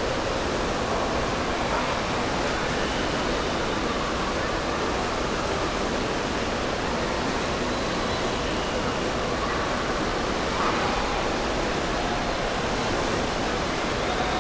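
Steady rushing of water in an indoor water park, with faint distant voices under it.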